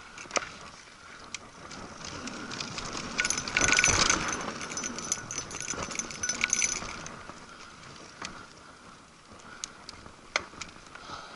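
Mountain bike ridden over dirt singletrack: tyres rolling on dirt, with the chain and bike parts rattling and clicking over bumps. It gets louder for a few seconds in the middle of the stretch, with a high steady buzz over the rattle.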